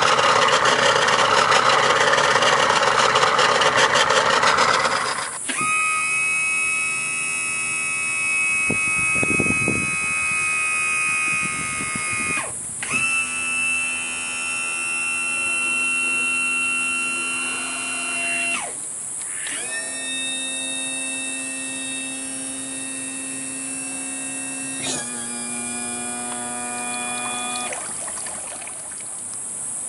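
Yamaha V6 150 outboard running for about five seconds, then stopping. An electric power trim and tilt motor then whines in four runs of a few seconds each, with short breaks between, its pitch shifting slightly from run to run.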